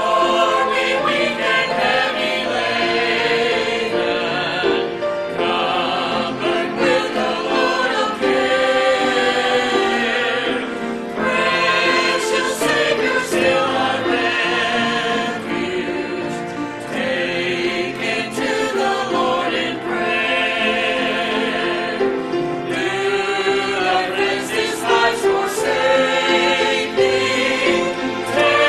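Mixed choir of men and women singing a hymn together, many voices in harmony.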